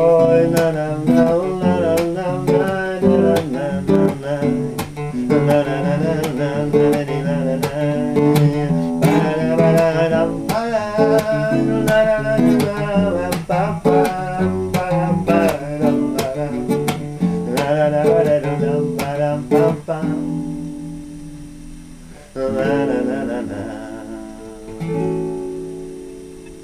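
Acoustic guitar playing the closing instrumental of a song, strummed chords that die away about 20 seconds in, then two final chords struck a few seconds apart and left to ring.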